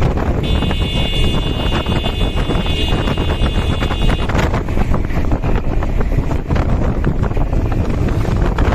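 Backhoe loader's diesel engine working, a dense steady low rumble with wind buffeting the microphone. A steady high whine rides over it for the first four seconds or so.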